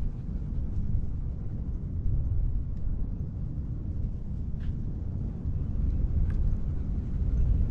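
Low, fluctuating outdoor rumble, with a few faint ticks scattered through it.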